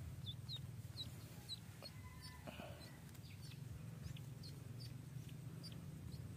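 Duckling peeping repeatedly while held in the hand: short, faint, high cheeps about twice a second.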